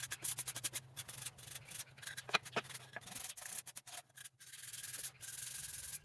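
Sheet of 320-grit sandpaper rubbed by hand over Douglas fir boards in quick, uneven strokes: fine finish sanding.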